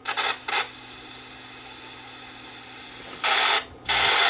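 Bursts of rustling, scraping handling noise as the open cassette recorder and its wiring are handled. Two short bursts come at the start, then a faint hiss, and then two louder, longer bursts near the end.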